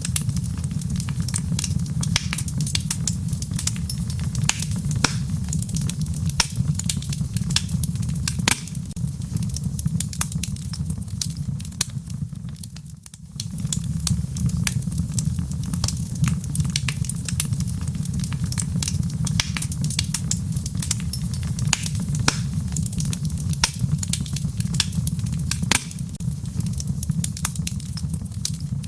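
Wood fire burning in a fireplace: a steady low rumble of flames with dense, irregular crackles and pops. The sound dips briefly about halfway through, then carries on.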